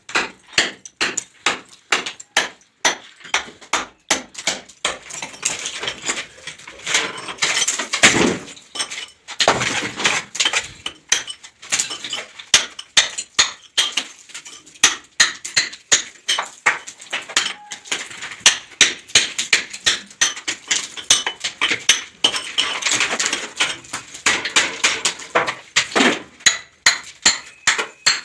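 Hand hammer striking a plaster ceiling again and again, about two to three blows a second, breaking out plaster that has been soaked by water leaking from the floor above.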